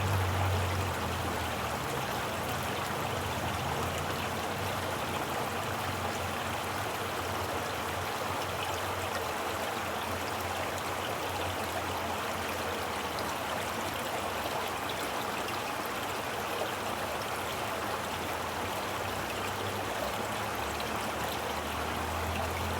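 Water flowing steadily in a stream, a continuous even rush. A low hum fades out in the first second or two and comes back near the end.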